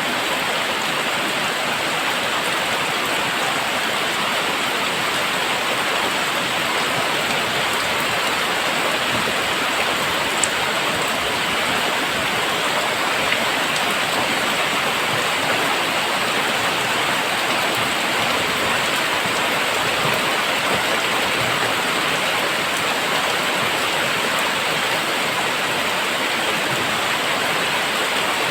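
Very heavy rain falling in a steady, dense downpour, with a couple of faint drop ticks.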